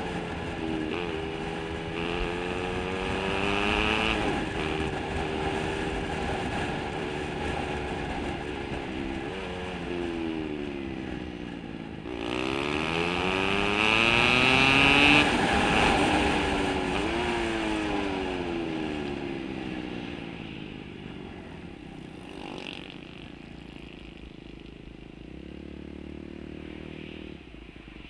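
A small motor scooter's engine heard from the rider's seat, with rushing wind, rising and falling in pitch as it speeds up and eases off. It is loudest on a hard acceleration about halfway through, then drops to a quieter, lower run as the scooter slows behind traffic near the end.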